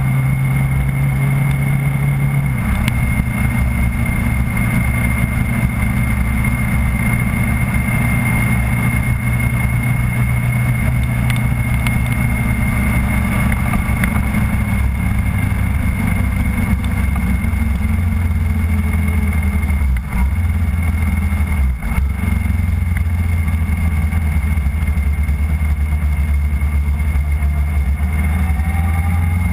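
Engine of the camera vehicle running steadily at low revs on a slow lap, with a steady high whine and road and wind noise. The engine note drops a step about three seconds in and again past the middle.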